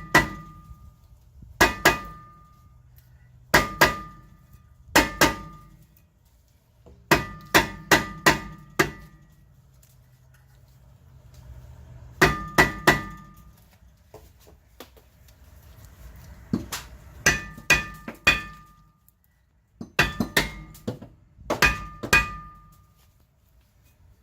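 Hammer blows on a stuck rear brake rotor to knock it off the hub, in short runs of two to five strikes with pauses between, each blow ringing metallically.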